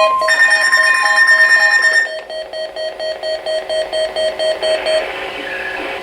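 Weather alert radios sounding their alarms: a rapid electronic beeping, about four beeps a second, with a steady high tone over it for the first two seconds. A steady lower alert tone cuts off just at the start, and the beeping stops about five seconds in.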